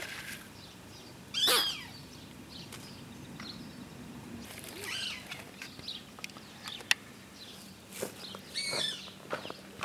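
A few short animal calls: one loud call sweeping down in pitch about a second and a half in, then fainter chirps, over light rustling with a single sharp click.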